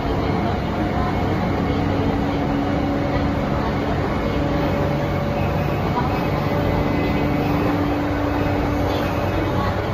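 E235 series electric train heard from inside a passenger car while running: a steady rumble of wheels on rail with the hum of the traction motors and inverter, its tones shifting slightly in pitch a few times.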